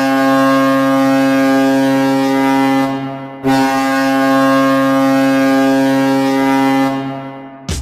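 Hockey goal horn, the Evansville Icemen's 2012 horn, sounding two long, steady, low blasts: the first lasts about three seconds, and the second starts after a short break and tails off near the end. It is the signal that a goal has been scored.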